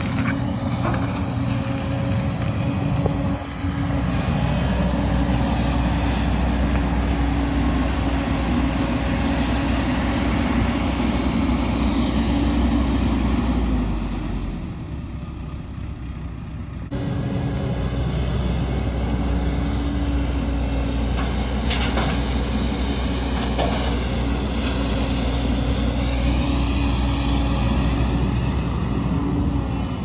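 JCB tracked excavator's diesel engine running steadily as it digs, with an occasional knock from the working machine. The sound drops for a few seconds mid-way, then comes back abruptly.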